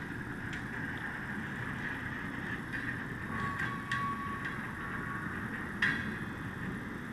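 Steady rail-yard and machinery noise around coal hopper cars. A thin, high squeal holds for about two seconds in the middle, and a few sharp metallic clanks come near the start, around four seconds in, and near six seconds.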